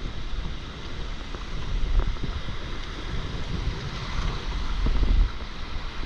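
Wind buffeting the microphone in uneven low gusts over the steady hiss of small waves breaking and washing up the shallows.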